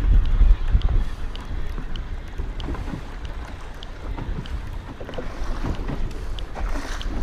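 Wind buffeting the microphone and choppy waves slapping against a fishing boat's hull, heaviest in the first second and again near the end, with faint regular ticks throughout.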